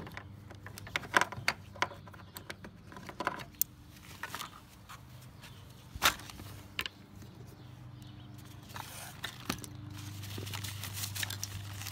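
Handling noise from a mesh drawstring gear bag being unclipped from its tether and moved about on a kayak seat: scattered clicks of the clip and rustling of the mesh. A low steady hum runs underneath and grows louder near the end.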